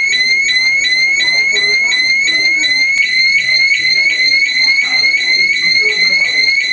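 Hospital fire alarm sounding: a loud electronic tone repeating in quick rising chirps, about three to four a second. It is a false alarm, which the hospital superintendent puts down to a mechanical fault.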